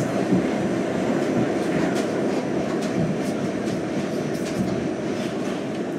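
Westinghouse-Amrail R68 subway car in motion, heard from inside the car: a steady rumble with sharp wheel clicks every now and then as it runs over the rail.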